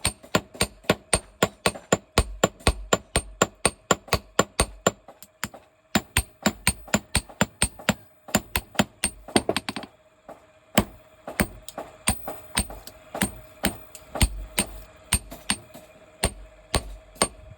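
Blacksmith's hammer striking metal on an anvil in a steady rhythm, about three to four ringing blows a second, with two short breaks.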